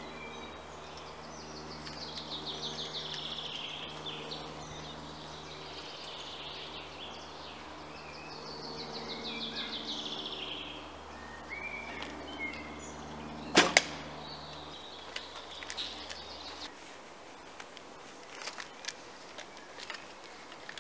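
Recurve bow shot: one sharp snap of the released string about two-thirds of the way in, the loudest sound here. Around it, birds sing in short trills, and a steady low humming drone ends a few seconds after the shot.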